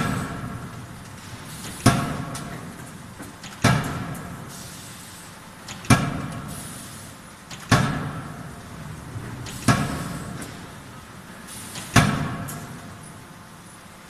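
C88K-31.5 electro-hydraulic die forging hammer striking a red-hot steel workpiece in its die. Seven heavy blows land about two seconds apart, each ringing out briefly.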